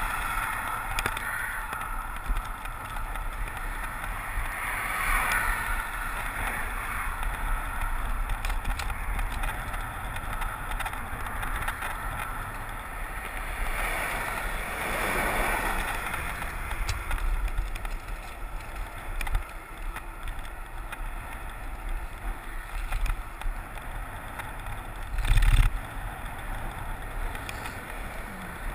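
Wind rumbling on a handlebar-mounted camera's microphone while cycling along a road, with cars passing the bike, the loudest swelling past about 14 to 16 seconds in. A brief thud about 25 seconds in.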